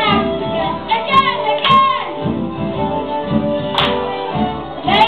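Folk dance band playing a lively barn-dance tune with a steady beat, and dancers' voices calling and singing along over the music.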